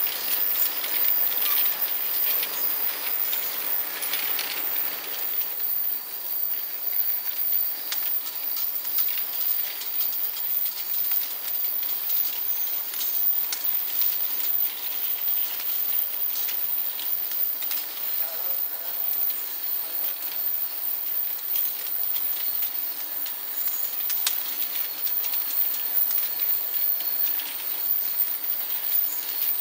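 Small vial washing machine running: glass vials clink and rattle against each other and the feed wheel in many quick ticks over a steady hiss of water spray.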